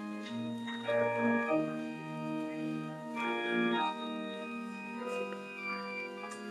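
Church organ playing a slow postlude, with sustained chords that change every second or so over held bass notes.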